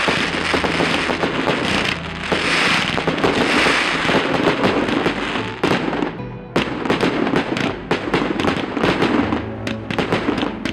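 Aerial fireworks bursting and crackling. A dense crackle of many small reports fills the first several seconds, it dips briefly about six seconds in, and then a fast run of sharp pops follows. Background music plays underneath.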